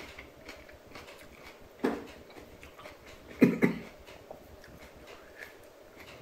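A man chewing a bite of a raw green HJ6 Pulsar chili pod, with faint, frequent crunching clicks. A short cough comes about two seconds in, and two more come quickly together about halfway through, the first throat reaction to the chili's heat.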